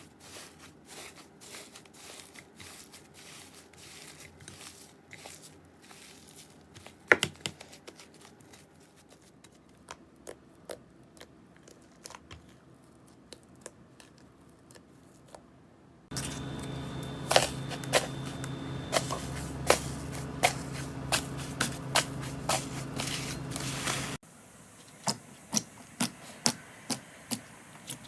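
Hands squishing and pressing slime: rapid small sticky clicks and crackles. In a louder stretch in the middle, sharp pops come about once a second over a steady hum.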